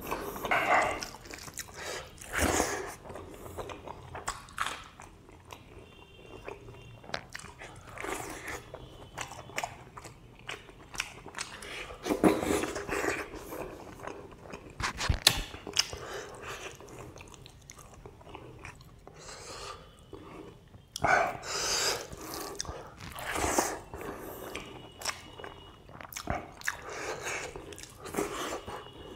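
Close-miked chewing of a hand-fed mouthful of rice and pork: irregular wet smacks and clicks, coming in louder spells.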